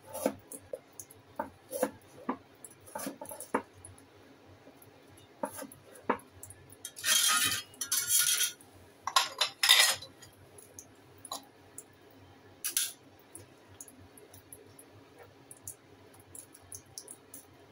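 Kitchen knife cutting carrots on a plastic cutting board: sharp taps of the blade on the board, then a few louder scraping sounds as the carrot pieces are pushed together across the board, and light clinks as they go into a ceramic bowl near the end.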